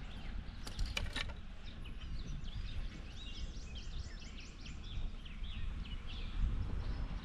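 Songbird chirping in a rapid series of short high notes for a few seconds, over a low steady rumble of outdoor noise, with a few sharp clicks about a second in.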